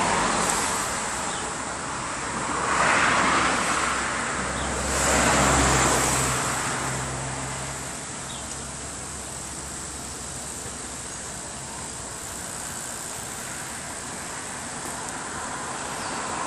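Road traffic: three vehicles pass one after another in the first six seconds, the last with a low engine hum, then a steady softer traffic hiss.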